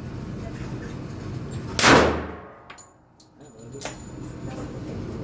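A single shot from a Springfield Armory XD .45 ACP pistol about two seconds in, loud and sudden, with a ringing tail that fades over about a second. A couple of faint sharp clicks follow.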